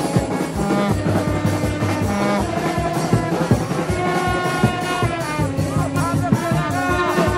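Loud band music with brass horns holding notes over a steady drum beat.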